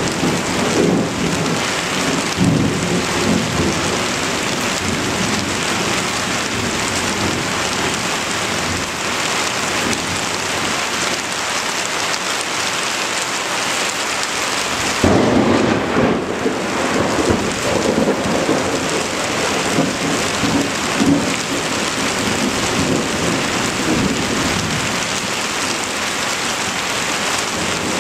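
Heavy rain falling steadily through a thunderstorm. Thunder rumbles near the start, and a sudden thunderclap about halfway through rolls on for several seconds.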